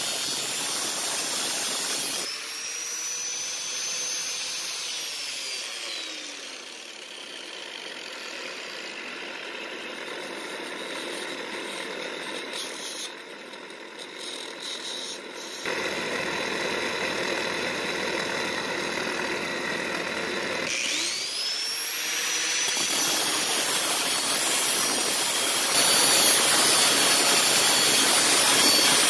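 Angle grinder with an oversized, unguarded disc grinding down a spinning steel shaft. About two seconds in it is switched off and its whine falls as the disc winds down, leaving a quieter stretch. Past the middle a low steady hum comes on, then the grinder's whine rises back up to speed and it grinds the shaft again, louder.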